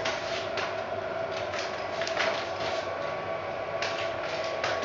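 Small electric motor and gears of a remote-controlled camera pan head running, with a steady whine and irregular ticking and clicking as it turns the camcorder.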